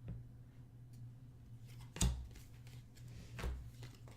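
Trading cards being handled, with two short sharp taps about a second and a half apart over a faint steady hum.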